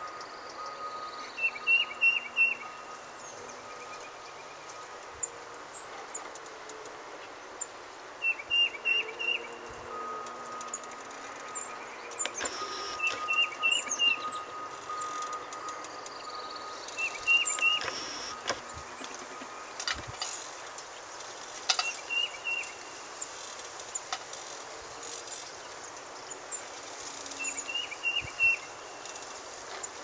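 A songbird singing the same short phrase of four or five quick notes six times, several seconds apart, with fainter high chirps from other birds. Under it runs a faint steady hum of distant earthmoving machinery.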